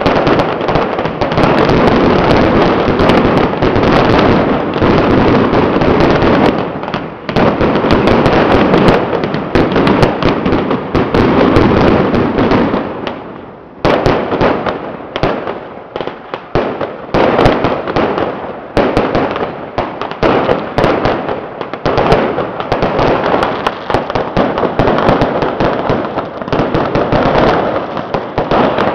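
Firecrackers going off in a dense, unbroken rattle of rapid cracks, like long strings of firecrackers set off for a temple deity. The barrage thins out briefly about halfway through, then builds up again.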